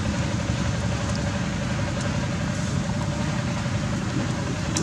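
Steady low rumbling noise with a faint constant hum running through it.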